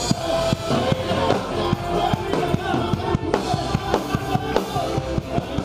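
Band music with a busy drum kit playing many quick strokes under sustained pitched instruments.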